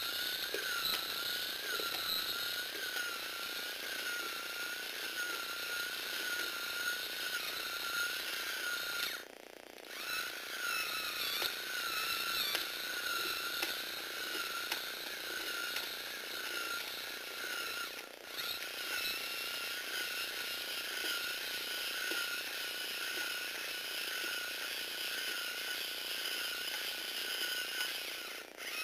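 Small electric motor and plastic gear train of a Lego Technic eight-legged walking robot running, a steady high whine that wavers slightly in pitch. It stops for under a second about nine seconds in, and twice more for an instant later.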